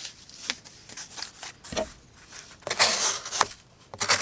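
Folding-knife blade cutting through cardboard: a few short scraping strokes, then a longer rasping cut about three seconds in.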